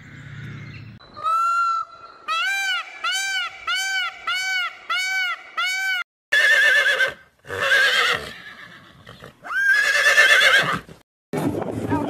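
A peacock calls once, then gives a run of eight short honking calls, about two a second. After a cut at about six seconds, a horse whinnies three times, each call loud and wavering in pitch.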